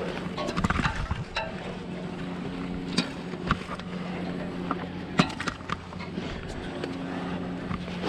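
A truck engine runs steadily with a low hum under the climb, and gloved hands and boots knock and clack on the aerial ladder's rungs, one knock about five seconds in standing out as the loudest. Turnout gear rustles with each move.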